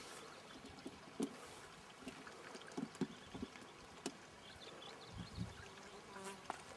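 Quiet river ambience: faint flowing water with a few soft knocks, and an insect buzzing near the microphone.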